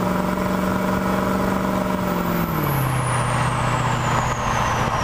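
2003 Ford 6.0L Power Stroke V8 turbo diesel running straight-piped, held at raised revs and then dropping back to a lower engine speed about halfway through. The turbo's high whistle falls steadily in pitch as it winds down.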